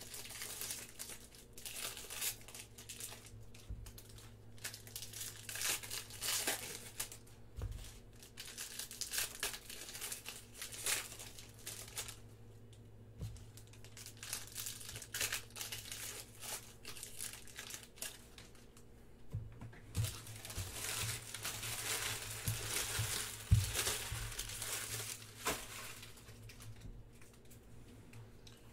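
Plastic-foil wrappers of Panini Prism baseball card packs being torn open and crinkled by hand, an irregular crackling, with cards shuffled and handled. A few soft thumps come in the later part, the loudest about two-thirds of the way through.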